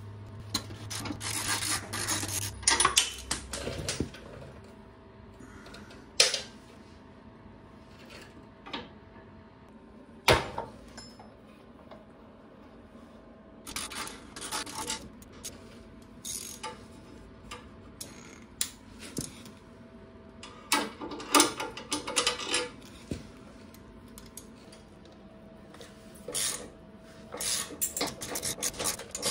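A ratchet wrench clicking in quick runs, several times over, as bolts are loosened and backed out, with a couple of single sharp knocks of metal tools in between.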